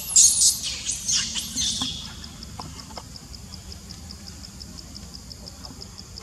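High-pitched chirping calls, loudest in the first two seconds, then a steady pulsing insect trill of about four to five pulses a second.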